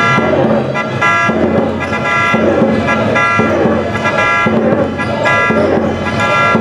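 A school cheering section's brass instruments playing a short phrase that repeats about once a second, over the noise of a chanting crowd in the stands.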